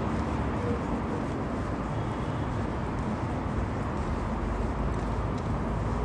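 Steady noise of distant road traffic in a city, with a low rumble that grows heavier about four seconds in.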